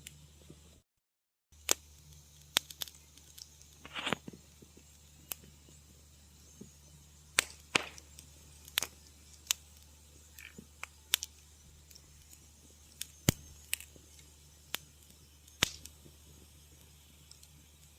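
Wood fire crackling: sharp, irregular pops and snaps, about one a second, over a low steady hum. The sound cuts out completely for about half a second near the start.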